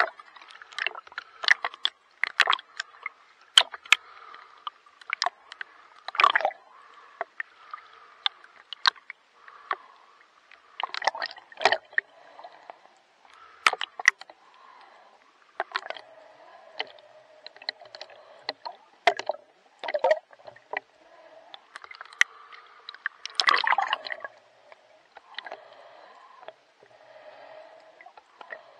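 Water splashing, sloshing and gurgling from swimming strokes, with many short, sharp splashes coming irregularly about once a second and a few louder bursts of splashing.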